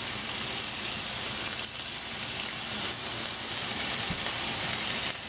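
Minced garlic frying in hot oil in a skillet: a steady sizzle.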